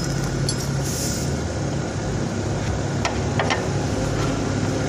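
Steady low mechanical hum with a few light metallic clicks about three seconds in, as a metal running-board mounting bracket is handled against the car's sill.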